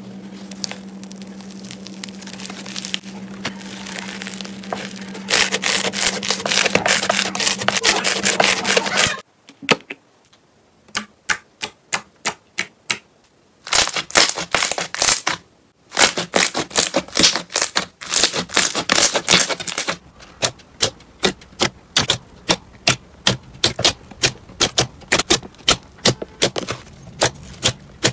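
Hands squeezing and poking slime. Foam-bead slime crackles and crunches for the first several seconds over a steady low hum. Then sticky slime clicks and pops in strings of small sharp pops as it is pressed, about two a second near the end.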